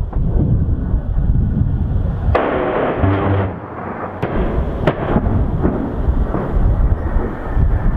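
A-10 Warthog attack run: a loud rasping burst from its GAU-8 Avenger 30 mm cannon (the 'BRRRT') about two and a half seconds in, amid booming explosions and sharp impacts.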